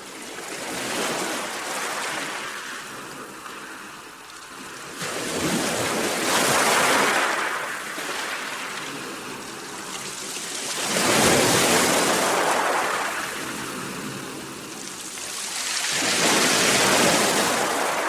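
Sea waves: the surf swells up and falls back three times, about every five seconds, after a smaller wash near the start.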